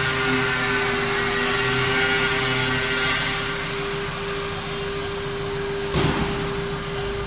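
The 2.2 kW water-cooled spindle of a 6090 hobby CNC router running with a steady high whine, with hissing cutting noise that thins about three seconds in. A brief louder rasp comes near the end.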